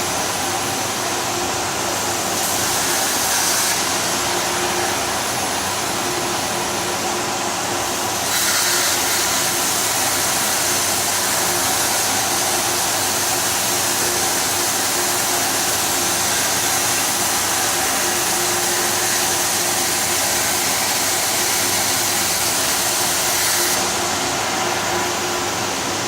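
CNC plasma cutting machine running: a loud, steady hiss over a constant mechanical hum. The hiss turns sharper and brighter briefly about three seconds in, then again from about eight seconds in until shortly before the end.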